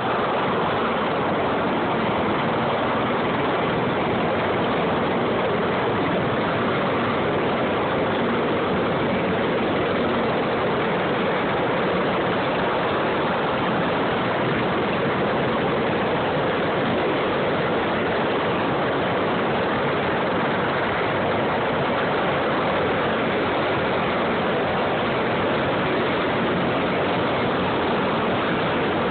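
CH-53-type heavy-lift helicopters running on the ground with rotors turning: a steady, loud rush of turbine and rotor noise.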